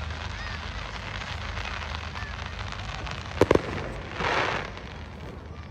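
Fireworks going off at a display: two sharp bangs about three and a half seconds in, then a brief hissing crackle, and another bang at the very end, over a murmuring crowd.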